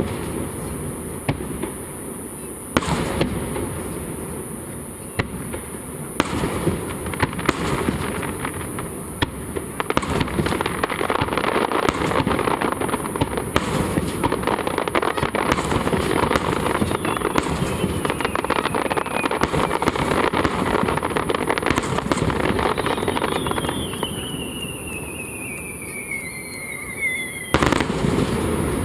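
Aerial fireworks: shell bursts with bangs at uneven intervals over continuous dense crackling. The crackle thickens through the middle, and a single large burst comes near the end.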